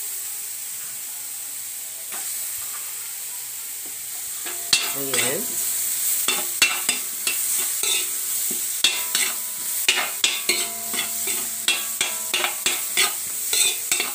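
Garlic, ginger and onion sizzling in butter in a metal wok. From about five seconds in, a metal spoon stirs them, scraping and clicking against the pan about twice a second.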